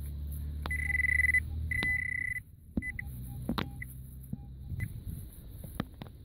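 Garrett Pro-Pointer pinpointer sounding off as its tip is worked through the soil at a metal target: two held high tones about a second in, then a few short blips of the same tone. Sharp clicks of the probe scraping soil and roots are scattered through.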